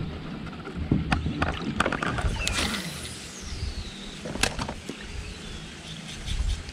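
Scattered clicks and knocks of a spinning rod and reel being handled in a plastic kayak, with light bumps against the hull.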